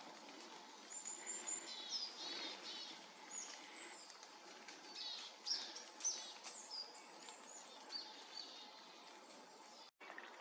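Small Poecile tits (gaichkas) calling: many short, high chirps and quick falling notes scattered throughout, faint over a soft steady background.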